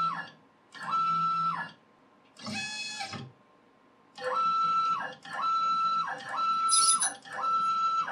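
Z-axis stepper motor of a CNC 3018 Pro router drives the spindle carriage up and down on its lead screw in a series of short jog moves, each under a second with brief pauses between. Each move is a whine that climbs quickly in pitch, holds one steady note and drops away as the motor accelerates and decelerates. One move about three seconds in is quieter and lower.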